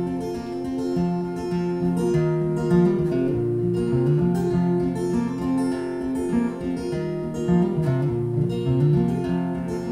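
Acoustic guitar played solo, strummed chords over a moving bass line, with no singing.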